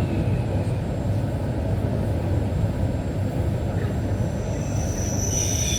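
Train running on the rails with a steady low rumble; near the end a high, ringing squeal of several tones sets in, typical of wheels or brakes squealing as the train slows.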